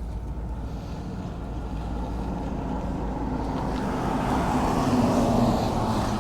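A motor vehicle passing by, its engine and tyre noise swelling to a peak about five seconds in and then fading, over a steady low rumble.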